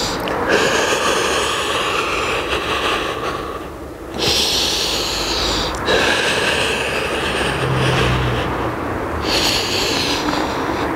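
A man breathing hard and close to the microphone while holding a plank on a Swiss ball. There are four long, hissing breaths, each split off by a brief pause.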